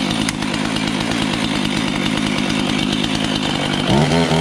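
Husqvarna 450 Rancher two-stroke chainsaw running steadily, just started and warming up, during a check of its chain brake; about four seconds in its engine note gets louder and the pitch wavers.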